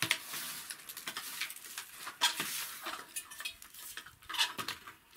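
A long-handled brush sweeping a cracked whitewashed ceiling: irregular scratchy scraping strokes, with a few sharper clicks and knocks.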